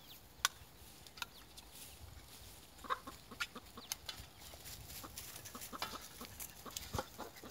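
Chickens clucking faintly now and then, with a few scattered sharp clicks and taps.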